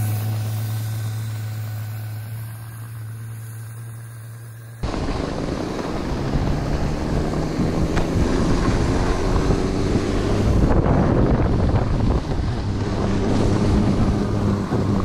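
Electric snow bike's Lightning Rods Big Block motor running with a steady hum that fades as the bike pulls away towing a skier. About five seconds in, a cut brings louder, steady rushing wind on the microphone, with the bike's motor faintly underneath.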